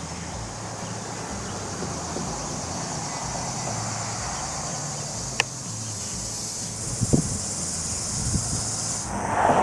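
Steady high-pitched buzz of insects in summer grass and trees, with one sharp click about five seconds in and a brief rustle near the end.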